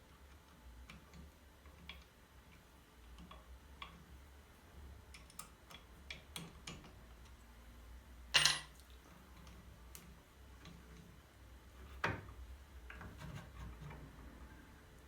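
Faint scattered clicks and taps of small hard objects being handled, with one louder clatter about eight seconds in and a sharper knock about twelve seconds in.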